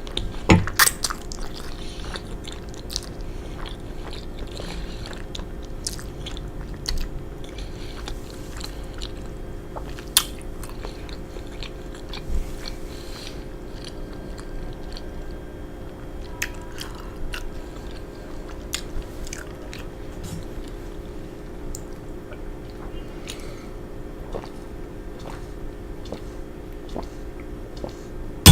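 Close-miked chewing of a mouthful of penne pasta, with scattered short mouth clicks, a few louder, over a steady low hum.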